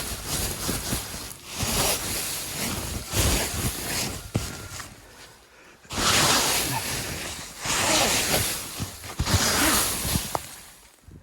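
Footsteps trudging through deep fresh snow: about six swishing crunches, each about a second long, spaced irregularly, with a gap in the middle.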